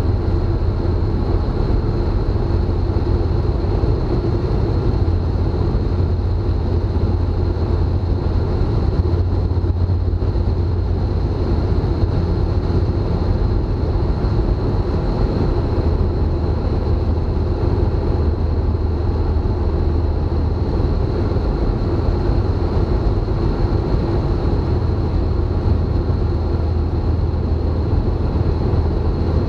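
Tecnam light aircraft's engine and propeller running steadily in flight, heard inside the cabin as a constant low drone with a thin high tone and rushing air over it.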